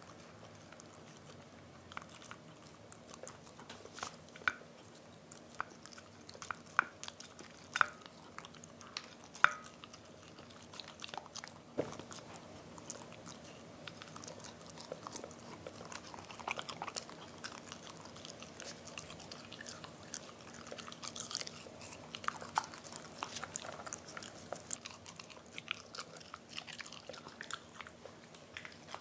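A Pembroke Welsh Corgi puppy licking and nibbling soft black sesame pudding from a plate in small bites. The sound is quiet, scattered wet mouth clicks and smacks, with a few sharper clicks in the first half.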